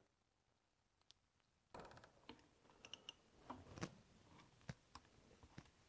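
Faint clicking and ratcheting of a handheld zip tie tensioning tool cinching nylon zip ties around a coiled cord. There is a quick run of clicks about two seconds in, another about three seconds in, then scattered single clicks.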